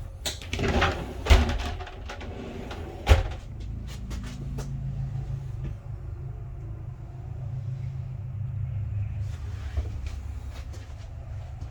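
A door or cabinet being handled: a few knocks and clicks, then two sharp thumps about two seconds apart. A steady low hum follows and carries on.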